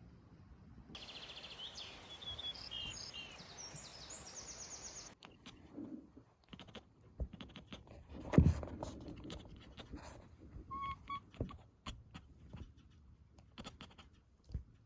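Small birds chirping and trilling in short, high phrases over steady outdoor background noise for about four seconds. This stops abruptly and gives way to scattered soft clicks and taps, with one louder thump a little past the middle.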